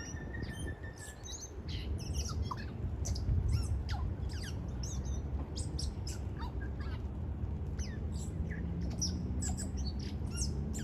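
Tui singing: a varied run of short whistles, clicks and quick up-and-down sweeps, with one held whistle over the first second and a half. A low rumble runs underneath.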